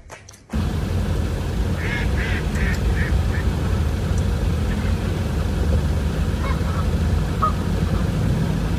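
A steady low rumble, with a quick run of five or six short animal calls about two seconds in and a few faint chirps later.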